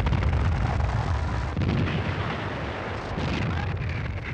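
Battle sound of artillery and gunfire: a continuous, dense low rumble with many small cracks through it.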